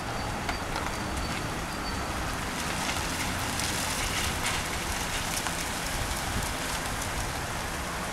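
Wind noise on the microphone outdoors: a steady rushing with scattered faint crackles.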